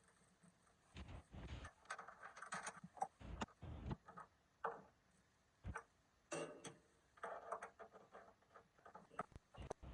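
Faint, scattered clicks and taps with brief rustling, coming irregularly with no steady rhythm.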